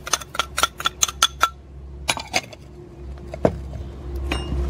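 Ceramic bowls clinking in a quick run of small clicks as white granules are tipped and tapped out of a small bowl into a larger one, followed by a few scattered clinks.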